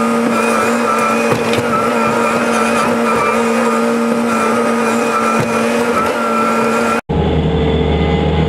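Engine and drivetrain of a small plow-equipped utility vehicle running under load with a steady whine, heard from inside the cab while its front blade pushes through deep snow. About seven seconds in the sound cuts off abruptly and gives way to a deeper engine sound.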